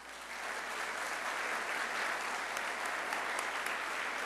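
Audience applauding, the clapping swelling in the first half second and then holding steady.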